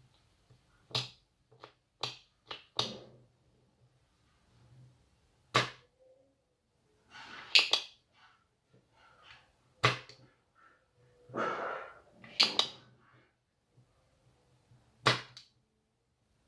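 Sharp clicks and snaps from hand tools working on a washing machine's control board while a push-button switch is unsoldered: five quick ones in the first three seconds, then one every two to three seconds. Short rustling scrapes come between them, over a faint low hum.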